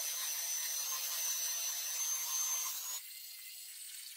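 Band saw blade cutting through a damascus steel blank: a steady rasping noise with a thin high whine over it. The noise drops sharply to a much quieter hiss about three seconds in.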